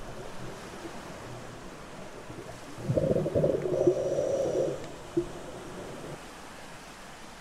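Underwater bubbling, a burst lasting under two seconds about halfway through, over a steady underwater hiss, with a short pop soon after.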